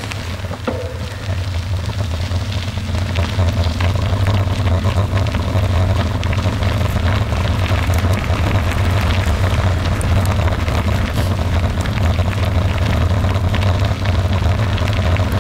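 Steady low rumble of travel along a gravel road: tyres rolling on loose gravel with wind buffeting the microphone, and many small crackles of stones. It grows a little louder over the first few seconds.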